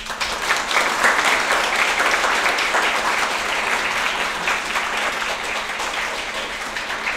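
Audience applauding. The clapping starts at once and thins out near the end.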